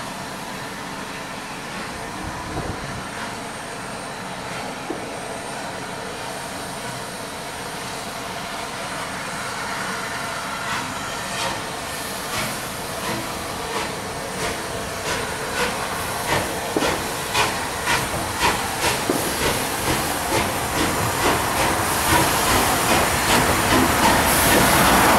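SR Merchant Navy class 35006, a rebuilt three-cylinder Pacific steam locomotive, pulling away from a stand. Steam hisses at first, then from about halfway through its exhaust beats come in, quickening to about two a second and growing louder as it draws nearer.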